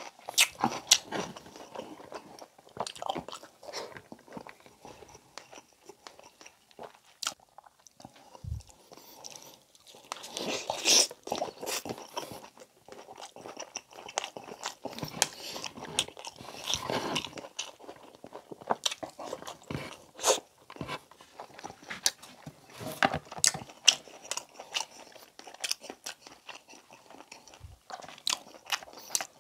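Close-miked mukbang eating of braised pork belly: wet chewing and biting with irregular mouth smacks and clicks, louder in a couple of spells.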